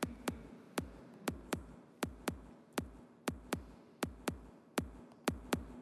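Sonic Pi playing its :bd_haus house kick drum sample in a Euclidean rhythm (5 hits spread over 8 quarter-beat steps). This gives five punchy kicks every two seconds in an uneven, looping pattern.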